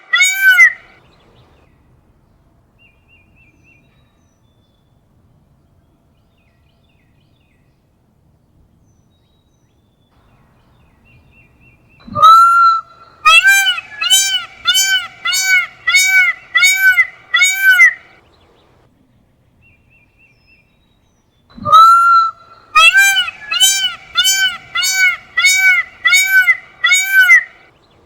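Peacock calling in runs of loud, repeated arched calls, about two calls a second, each run opening with a longer note. Two runs of about six seconds each, separated by quiet gaps, with another run ending just at the start.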